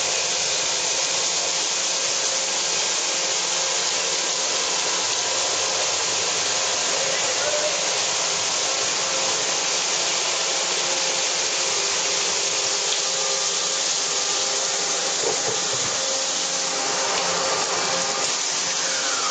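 Mitsubishi MH-50C horizontal machining center milling a workpiece under flood coolant: a steady hiss of coolant spray and cutting over the spindle's running. Near the end a tone falls in pitch.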